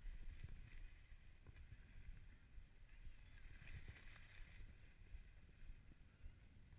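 Faint, muffled rumble and hiss of skis sliding over packed snow, with wind on the microphone; the hiss swells briefly about halfway through.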